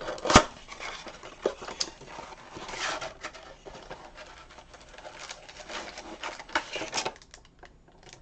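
Cardboard trading-card box being opened and its packs handled: a sharp tap about half a second in, then scattered clicks, scrapes and rustles.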